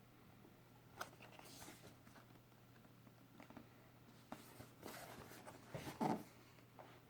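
Quiet handling of keyboard packaging: scattered light taps, scrapes and rustles, with a louder rustle about six seconds in.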